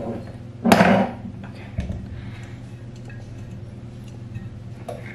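Parts of a small glass lamp being handled and set down, with one loud knock about a second in and a few faint clicks and taps after it, over a steady low hum.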